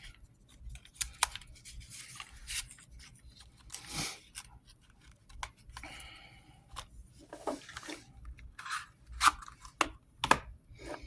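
Paper rustling with scattered small clicks and taps as a pocketknife and its folded paperwork are packed back into their box; the sharpest clicks come near the end.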